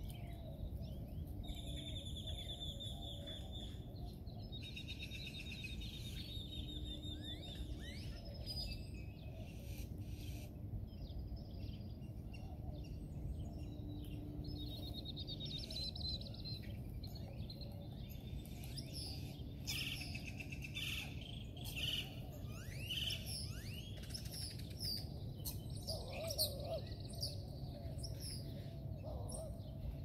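A flock of birds feeding on the ground, great-tailed grackles among them, calling throughout: many short chirps and whistles, with buzzy rattling trills several times. A steady low rumble lies underneath.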